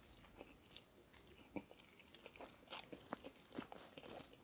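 Faint eating sounds: someone chewing a mouthful of instant ramen noodles, with many small irregular clicks and smacks.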